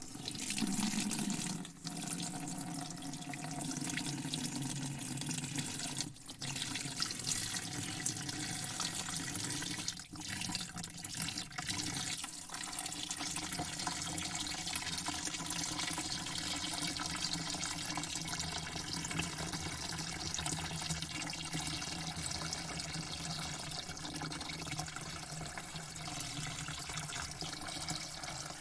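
Water spraying steadily into a bucket, a continuous splashing hiss with a few brief breaks in the flow.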